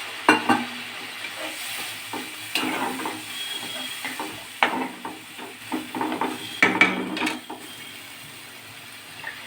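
A spatula knocking and scraping in a pan as a spiced masala is stirred, over a steady sizzle that slowly fades as a little water cooks in.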